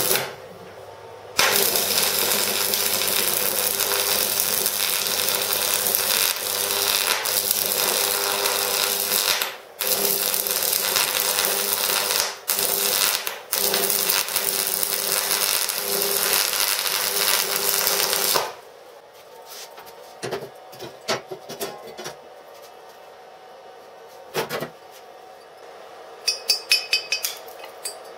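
Stick-welding arc from a homemade microwave-oven-transformer AC welder crackling and sizzling steadily over a low hum, breaking off briefly a few times as the electrode is re-struck, then stopping about 18 seconds in. Near the end, sharp metallic taps of a chipping hammer knocking slag off the fresh weld bead.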